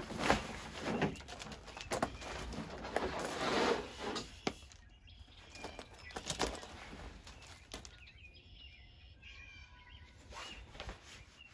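Cot fabric and its carry bag rustling and flapping as they are pulled out and unfolded, with a few light knocks from the poles. The handling is busiest in the first few seconds and quieter after that.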